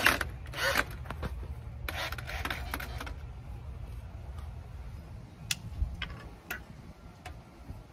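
Hand work on a frame being fitted: two spells of scraping and rubbing in the first three seconds, then a few sharp clicks, over a low steady rumble.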